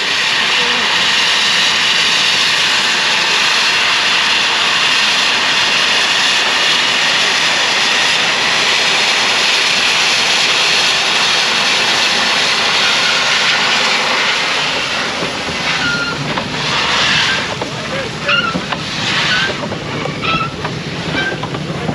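A Glover steam logging locomotive blowing steam from its open cylinder cocks in a loud, steady hiss. About fifteen seconds in the hiss eases and turns into softer, uneven puffs.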